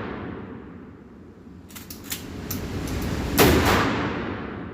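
Kel-Tec KSG 12-gauge pump shotgun firing mini-shells. The echo of a shot fades at the start, the pump is racked with a few sharp metal clacks about two seconds in, and a second shot goes off about a second later with a long echoing tail.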